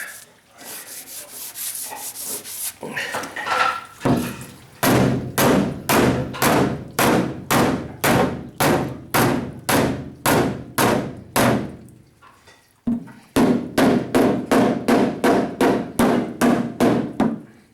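Rubbing and scraping on the panel, then steady hammer blows on a wooden board held against the dented steel bed side of a pickup, about two to three a second in two long runs with a short pause between them. The steel is being worked out while the hydraulic spreader still has pressure on it from inside.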